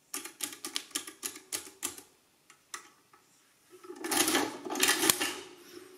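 A Portable Adding Machine (later the Corona Adding Machine), about a century old: a quick run of key clicks as a number is entered, then the hand lever is pulled. The lever pull gives a longer mechanical clatter of about a second and a half as the machine adds and prints, with two loud clacks about a second apart.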